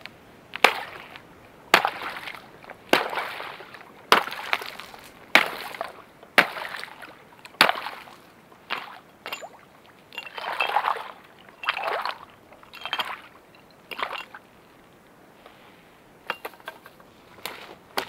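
An axe chopping through thin ice at the edge of shallow water: sharp cracking strikes about a second apart, each with a splash, then a few longer sloshing breaks of ice and water, and small clinks of ice shards near the end.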